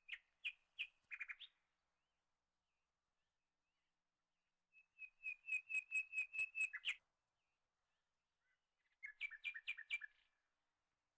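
A small bird singing: three short phrases of quick repeated high chirps, about eight notes a second in the longest, one near the start, one in the middle and one near the end.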